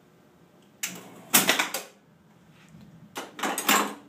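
A 1958 electromechanical pinball machine's relays and stepper units clattering in two bursts, about a second in and near the end, as the game resets after its start contacts are bridged by hand, because the machine will not start normally.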